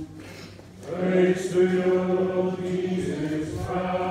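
A group of voices singing a slow chant in unison, with long held notes, coming back in about a second after a brief pause.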